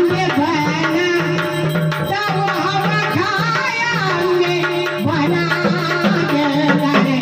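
Marathi gavlan folk song: a woman singing with a melodic, wavering line over drum accompaniment and a steady held drone.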